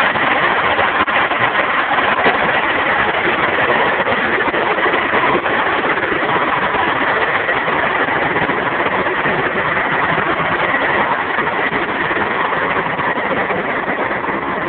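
Scania 113 Topline truck's six-cylinder diesel engine idling steadily with a deep, loud rumble.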